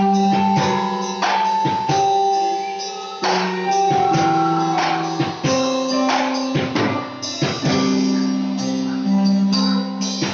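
Live church band playing a worship song: held keyboard chords over drum kit and cymbal strikes.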